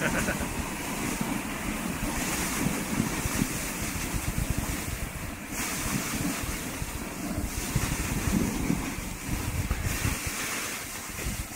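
Steady rushing noise of a dog sled moving over snow: wind buffeting the microphone, mixed with the hiss of the runners sliding on the snow.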